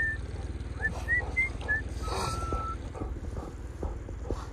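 Small outboard motor running steadily at low speed, with a few short whistles in the first two seconds and one longer held whistle about two seconds in.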